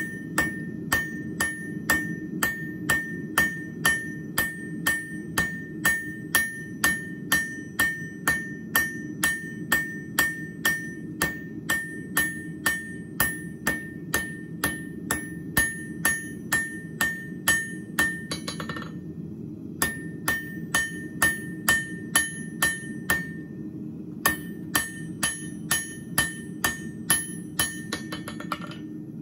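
Hand hammer striking a hot steel bar on an anvil at about two blows a second, each blow ringing, as round bar is forged down to crisp square stock. The blows stop briefly twice, and each run ends in a quick flurry of light taps. A steady low rumble runs underneath.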